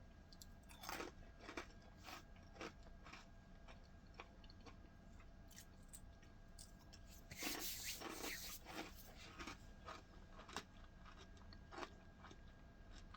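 Dry Strawberry Cinnamon Toast Crunch cereal pieces being crunched and chewed, eaten without milk: scattered short crunches, with a louder run of them about seven seconds in.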